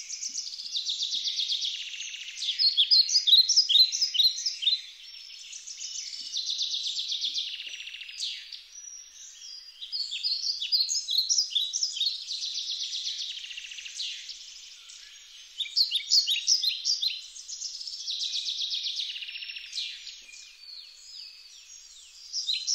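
Birdsong: a small songbird singing long runs of rapid, high trills and chirps, broken by short pauses.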